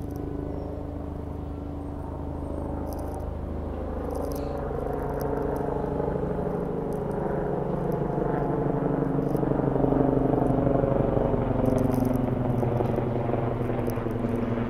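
New York City subway train approaching on the steel elevated BMT Astoria Line, its rumble, motor hum and wheel noise growing steadily louder over the first ten seconds or so.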